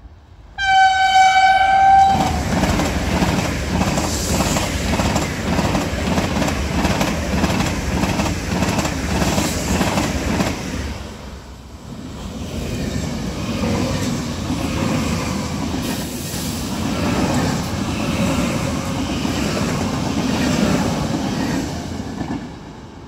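SBB RABe 503 (ETR 610) electric express train sounds one steady horn note for about a second and a half, then passes at speed with a rhythmic clatter of wheels on the rails. After a brief dip about eleven seconds in, a Trenord double-deck regional electric train approaches and runs by, fading near the end.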